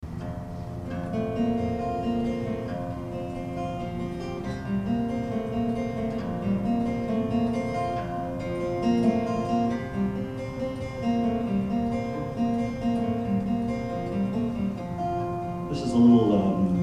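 Acoustic guitar played solo, a run of picked notes with some strummed chords.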